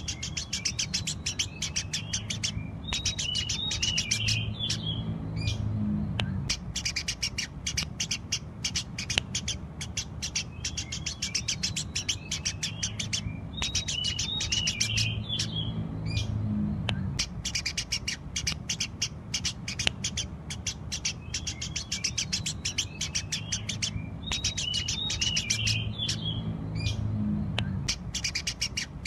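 Eurasian tree sparrows chirping rapidly and continuously, with a burst of twittering notes that comes back about every 11 seconds as the recording repeats. A low hum runs underneath.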